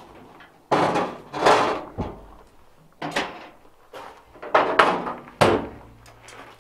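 Blacksmith's tongs and other hand tools being picked through and clattered: about six irregular, loud knocks and clanks.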